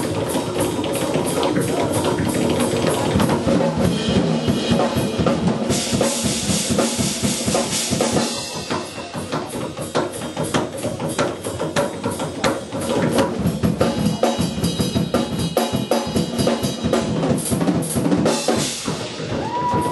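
Fast, dense live percussion from a drum kit and tap shoes, hits and clicks packed closely together, dipping in level briefly a little before halfway.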